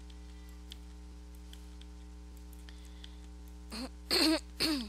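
Steady electrical hum with faint scattered clicks of a computer mouse. Near the end come two short, louder vocal sounds from a woman, falling in pitch.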